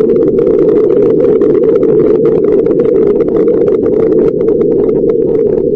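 A loud, steady low rumble with continual crackling over it, like a roar of engines or wind.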